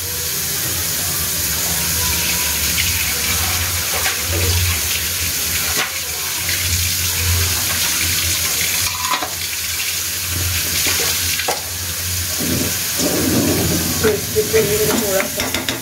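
Chopped onion and vegetables sizzling in hot oil in a kadai, a steady hiss, with a few light clicks. Near the end a spatula stirs them around the pan.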